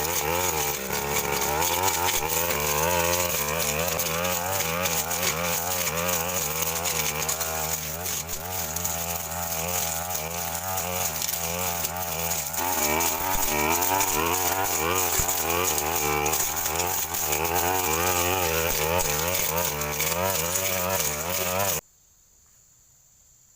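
Two-stroke engine of a Stihl FR 3001 backpack brush cutter running under load, its revs rising and falling repeatedly while the blade cuts through brush. It stops abruptly near the end, leaving crickets chirring.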